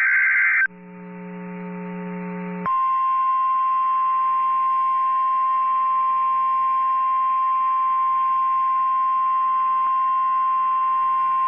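The end of an Emergency Alert System SAME header data burst, then about two seconds of low radio hum. Then the NOAA Weather Radio 1050 Hz warning alarm tone, one steady high-pitched tone held for about nine seconds, which cuts off just before the end. The alarm tone signals that a severe thunderstorm warning message follows.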